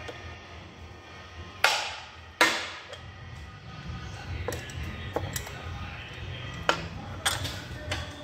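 Metal clanks as the end bell of a DC motor is fitted onto its frame: two loud, ringing knocks about a second and a half and two and a half seconds in, then several lighter clicks and taps as the cover is worked into place.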